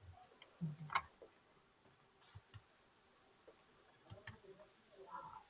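Faint scattered clicks and soft knocks, some in quick pairs, over quiet room tone.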